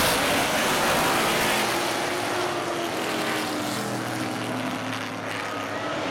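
A pack of street stock race cars' V8 engines running hard as the field passes close by, loudest in the first couple of seconds. The sound then eases back to a steady drone of several engines as the cars move away around the track.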